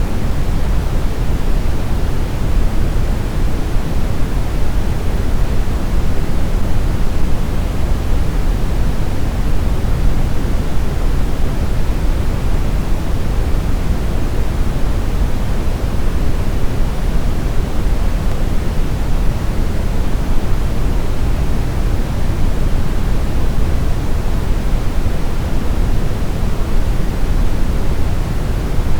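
Steady synthetic brown noise: an even, deep rumbling hiss with most of its energy in the lowest frequencies, unchanging throughout.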